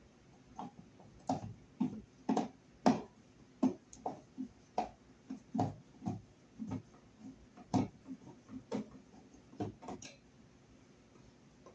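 Screwdriver working the screws of an old electric heater thermostat on its wall box: a run of irregular clicks and light knocks, roughly two a second, some louder than others.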